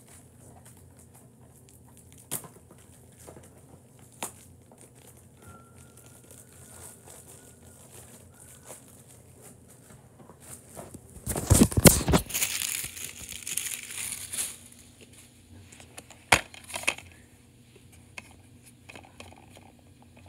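Plastic crinkling for about three seconds in the middle, then two sharp clicks, as a DVD case is handled and opened.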